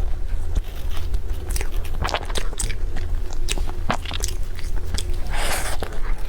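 A person biting and chewing crunchy food, with sharp, irregular crunches over a steady low hum.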